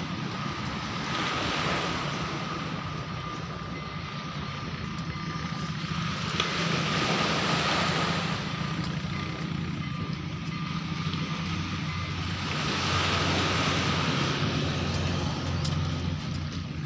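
Road traffic going by, its noise swelling and fading several times over a low steady engine hum.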